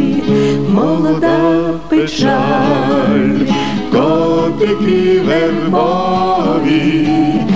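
A vocal trio singing in harmony over a plucked acoustic guitar, in a live performance of a Ukrainian song.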